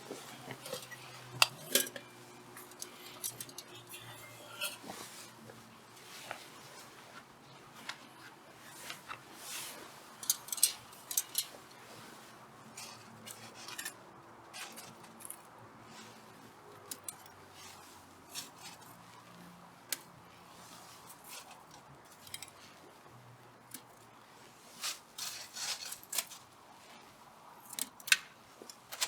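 Irregular sharp clicks and light clinks, scattered unevenly, some in quick clusters.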